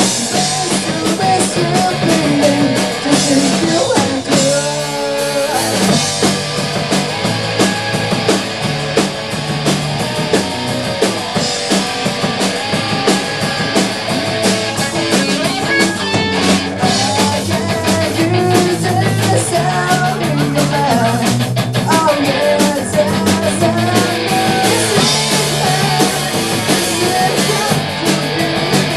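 Punk rock band playing live: distorted electric guitars, bass and a drum kit driving along at a fast pace under a singing voice.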